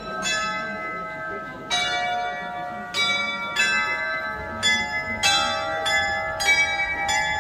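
Tuned bells of a tower glockenspiel playing a tune, each note struck separately and left ringing, new notes coming about every half second to a second, over a faint murmur of a street crowd.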